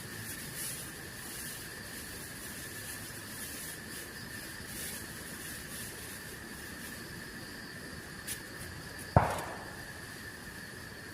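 Steady forest insect chorus with a held, high drone. About nine seconds in, a single sharp knock with a brief ringing tail rises above it.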